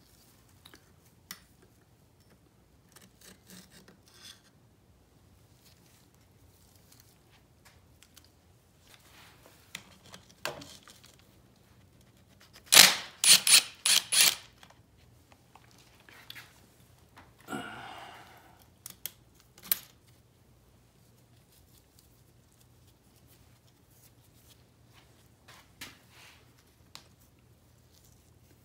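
Scattered clicks and taps of hand tools and small metal engine parts being handled during an engine teardown, with a quick run of four sharp clinks about halfway through and a short scrape a few seconds later.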